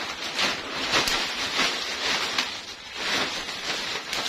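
Large clear plastic bag full of fried krupuk crackers crinkling and rustling irregularly as its neck is gathered and twisted shut by hand.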